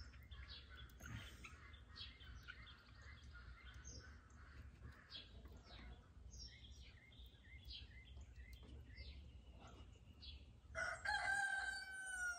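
Small birds chirping on and off, then a rooster crowing once near the end, the loudest sound, over a low steady rumble.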